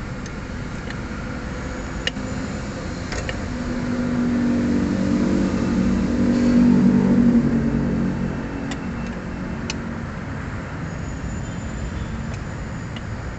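A motor vehicle engine over a steady low rumble, growing louder from about four seconds in to a peak near seven seconds and then easing off again, with a few light metallic clicks.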